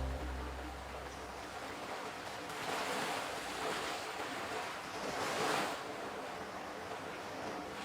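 Water washing in slow, gentle swells like small waves on a shore, rising and falling every couple of seconds. A low sustained musical tone fades out right at the start.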